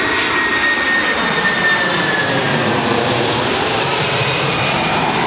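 Boeing 747 airliner passing low directly overhead on final approach to landing: loud, steady noise of its four jet engines, with a high whine that slides slowly down in pitch as it goes over.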